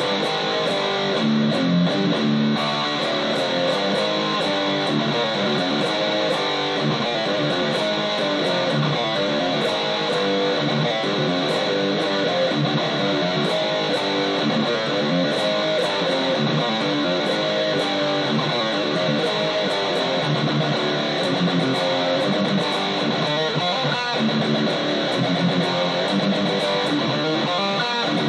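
Jackson electric guitar played without a break, a steady stream of quickly changing picked notes with frequent sharp attacks.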